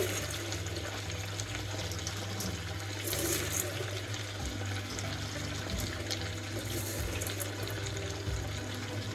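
Water running from a tap into a sink, a steady rush, with soft background music under it.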